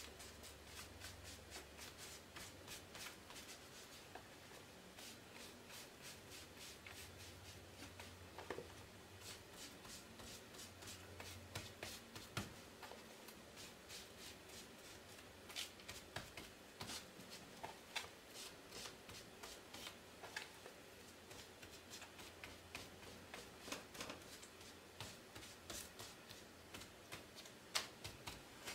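Foam sponge scrubbed and dabbed over painter's tape on a puzzle piece, laying on dark paint: faint, quick rustling scrapes with scattered soft taps.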